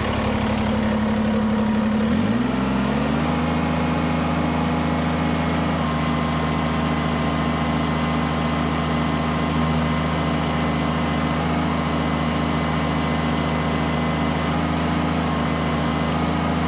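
Kubota BX compact tractor's three-cylinder diesel engine idling, then revved up about two seconds in and held at high, steady revs while the front loader strains to raise a heavy pallet of gravel-filled barrels. The load is at the edge of what the stock hydraulic pressure can lift.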